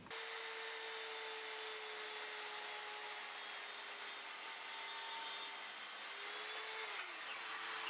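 Evolution R185 CCSL 1200-watt circular saw with its TCT multi-material blade cutting through 3/4 inch exterior plywood, a steady motor tone under the hiss of the cut, with a vacuum cleaner running on the dust port. The motor's pitch drops near the end.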